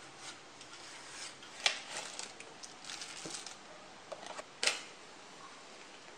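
Light swishing of a feather duster, then small objects being handled on a wooden desk, with two sharp clicks about a second and a half in and again near five seconds, and a few softer ticks between them.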